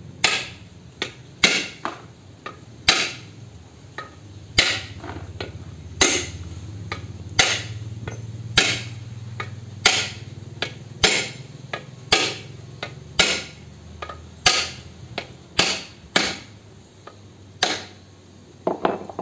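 Hammer blows on a steel pipe used as a drift over the drive pinion of a Nissan Diesel truck differential carrier: about sixteen sharp metal-on-metal strikes, roughly one every second or so, each ringing briefly. A low steady hum runs underneath.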